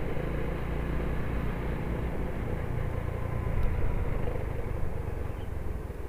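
Yamaha Jupiter underbone motorcycle running on the move, a steady engine rumble mixed with road and wind noise, easing off a little near the end.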